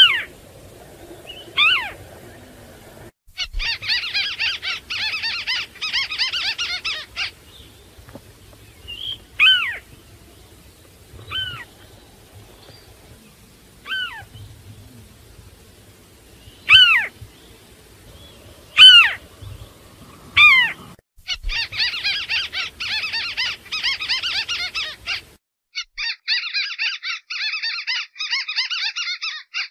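White-browed crake (tikusan) calls from a bird-catchers' lure recording. Loud single sharp notes falling steeply in pitch, about eight in all, alternate with three runs of rapid chattering a few seconds long.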